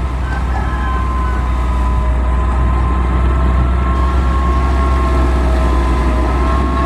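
Heavy construction machine's diesel engine running steadily: a deep low rumble with a steady high-pitched whine over it.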